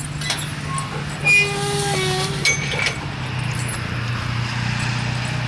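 A motor vehicle's engine running steadily, dropping slightly in pitch about three seconds in. About a second in, a short high-pitched squeal sounds over it.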